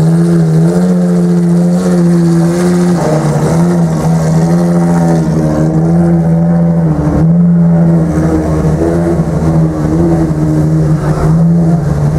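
LaFerrari FXX K's 6.3-litre V12 idling at a high, even note, its pitch dipping slightly every few seconds.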